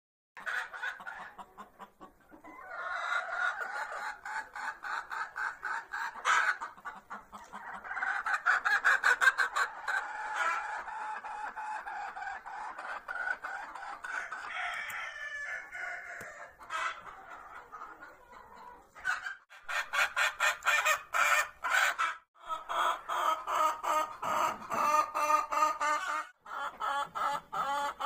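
Chickens, hens with a rooster, clucking in long runs of rapid clucks, with a few short pauses.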